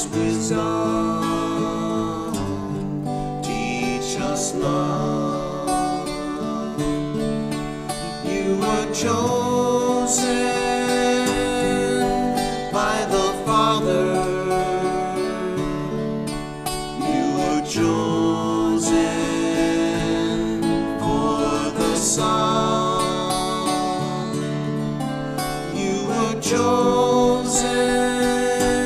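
Two acoustic guitars strummed and picked, accompanying men singing a slow Marian hymn.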